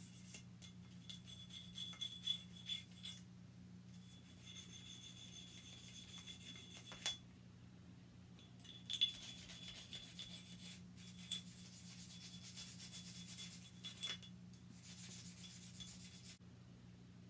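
A small cleaning brush scrubbing the grooves of a semi-automatic pistol's metal slide: a faint, scratchy rasping in stretches of a few seconds with short pauses between.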